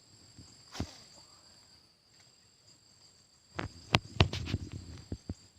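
Insects keep up a steady, high-pitched drone. A single click sounds just under a second in, and near the end comes a quick cluster of sharp knocks and clicks, the loudest sounds here.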